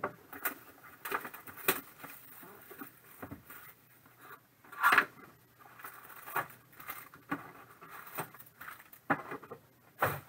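Cardboard trading-card hobby box being opened by hand and its foil card packs pulled out and set down in stacks: a string of short rustles, crinkles and taps, the loudest a longer rustle about five seconds in.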